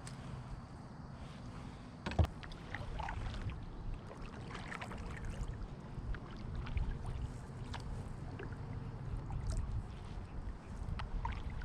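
A kayak being paddled: splashy paddle strokes in the water and light knocks on the hull, with one sharp knock about two seconds in, over a steady low rumble.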